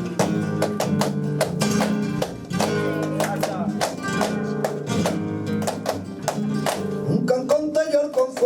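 Flamenco guitar playing a Sevillanas introduction, with chords and many sharp percussive strikes several times a second. A singer's wavering voice comes in near the end.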